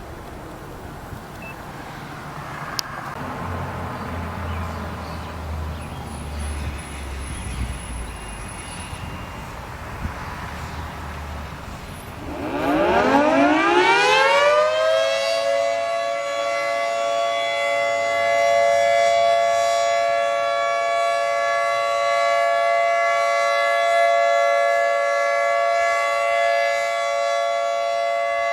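Low traffic and wind rumble, then about twelve seconds in a Federal Signal 2T22 two-tone outdoor warning siren winds up. Its pitch rises over a couple of seconds and then holds a steady two-note chord: the steady Alert signal used for tornado warnings.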